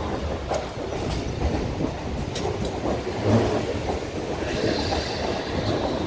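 TransPennine Express Class 350 Desiro electric multiple unit passing close along the platform: a steady low rumble with sharp clicks of wheels over rail joints and points. About four and a half seconds in, a high steady squeal sets in as the wheels take the curve.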